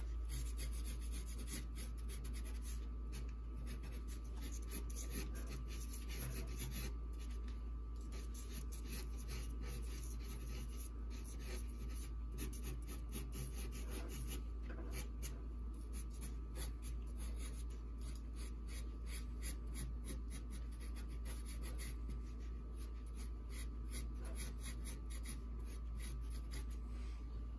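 Sharpie marker scratching across drawing paper in short, irregular strokes while eyes are sketched, over a steady low hum.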